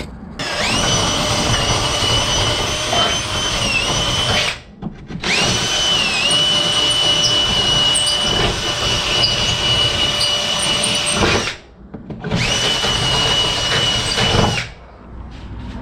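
Electric drill running in three long bursts with a steady high motor whine, boring and slightly widening bolt holes through the wooden top of a tool box.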